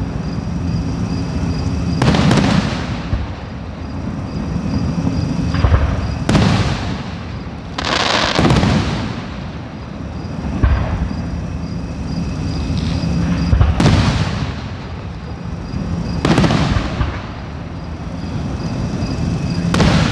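Aerial firework shells bursting overhead: about eight sharp booms spaced a few seconds apart, each trailing off in a rolling echo.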